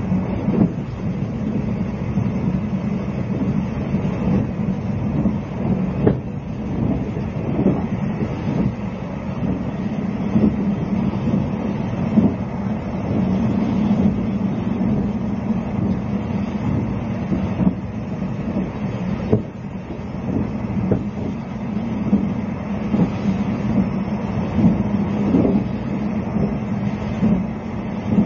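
Inside a JNR 20-series sleeper coach under way: a steady rumbling hum with short wheel-over-rail-joint knocks coming irregularly every second or few.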